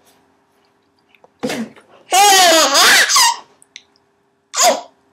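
Baby laughing and squealing in high-pitched bursts: a short one about a second and a half in, a longer, wavering one a little after, and one more brief squeal near the end.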